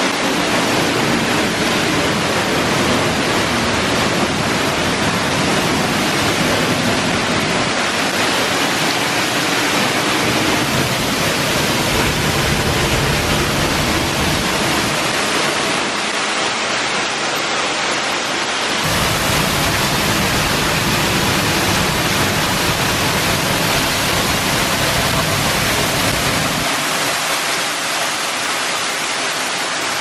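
Steady loud rush of a waterfall and of a shallow stream running over rocks below it, a constant roar of water with no breaks; the sound changes a little past halfway.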